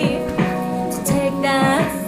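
A woman singing a song, with guitar accompaniment.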